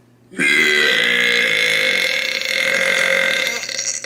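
A woman's long, loud burp lasting about three and a half seconds, starting about half a second in; a second burp begins right at the end.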